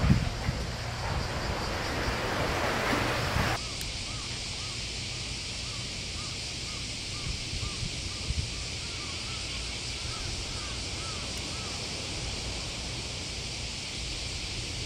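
Wind buffeting the microphone over surf for the first few seconds. The sound then changes abruptly to a quieter steady hiss, over which a long run of short, evenly repeated chirps sounds, likely from a bird.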